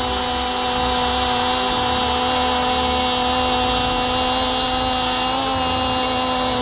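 A football commentator's single long held shout of "goal", kept on one steady pitch for several seconds, over stadium crowd noise.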